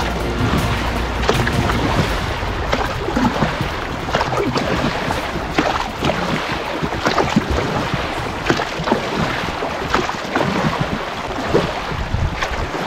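Water splashing and sloshing in repeated, irregular bursts as swim fins kick behind an inflatable float tube, with wind on the microphone.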